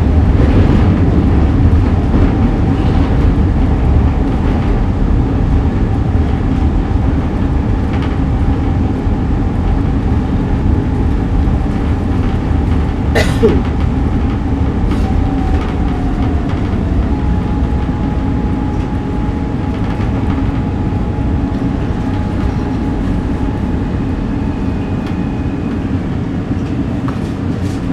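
A SEPTA M4 subway car running between stations, heard from on board: a steady rumble of wheels and running gear with a faint whine, and a single sharp clank about halfway through. The sound grows gradually quieter as the train slows for the next stop.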